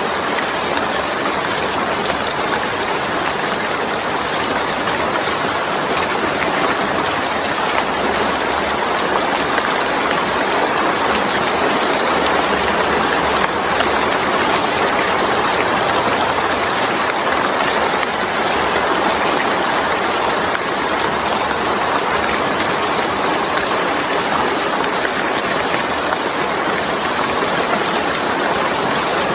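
Steady rain falling, a continuous even hiss that holds the same level throughout.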